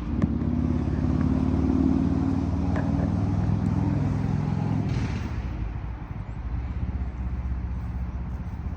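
A motor vehicle's engine running steadily, dropping away and quieter after about five seconds.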